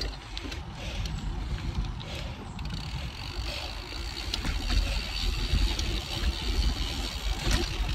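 Cervelo Aspero gravel bike rolling down a dirt singletrack: steady noise of its 47c tyres over packed dirt and leaf litter, with a low rumble of wind on the microphone and a few light clicks and rattles from the bike.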